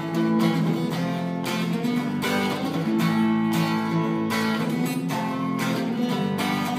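Acoustic guitar strummed in a steady rhythm, chords ringing between the strokes, with no voice.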